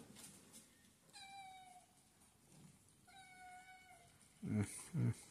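A kitten meows twice, each a high, thin call about a second long that falls slightly in pitch. Near the end come two short, low vocal sounds that are louder than the meows.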